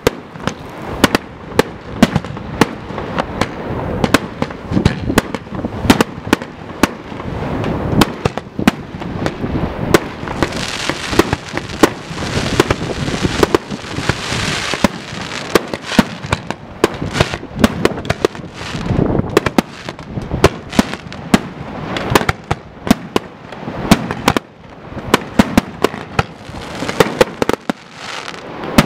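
Fireworks display: a rapid, continuous run of sharp shell bursts and launch bangs, with a denser crackling hiss of glittering star effects in the middle.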